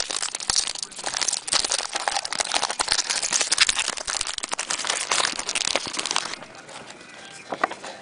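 Trading-card pack wrapper crinkling as a pack of cards is opened and handled. It stops about six seconds in.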